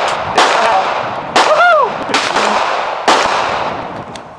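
Three shots from a semi-automatic pistol: one just after the start, one about a second later, and one about three seconds in. Each is loud and sharp, with a long echo fading after it.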